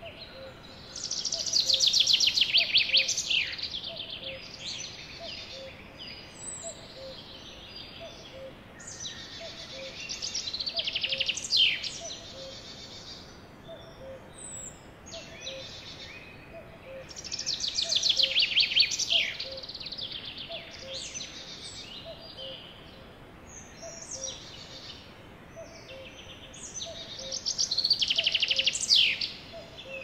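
Birdsong: a songbird repeats a loud, rapid trilling phrase about three seconds long, four times at roughly eight-second intervals, each ending in quick downward sweeps. A faint, evenly repeating chirp runs beneath it.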